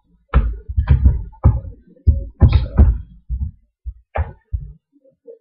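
A hand working chicken pieces through thick yogurt marinade in a bowl, making a quick, irregular run of about a dozen thumps and wet sloshes that stops shortly before the end.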